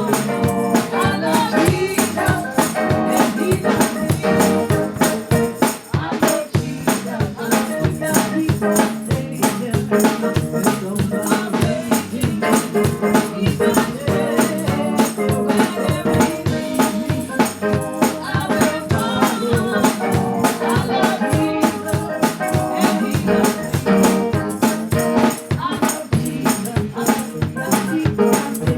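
Live gospel church music: singing with a fast, steady shaken-percussion beat of tambourine and rattles.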